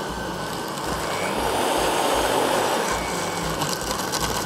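Countertop blender with a glass jar running, blending ice cubes, coconut and ice cream into a smoothie; the motor noise gets louder about a second in, with a faint rising whine.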